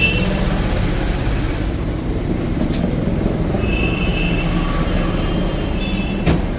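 Steady rumble of passing road traffic, with short high-pitched steady tones twice and a sharp click near the end.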